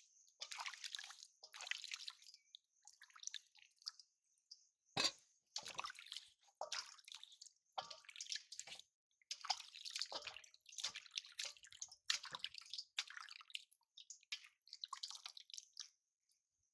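Whole jackfruits being washed by hand in a steel bowl of water: irregular splashing and dripping as the fruits are lifted, rubbed and put back. One sharper knock about five seconds in.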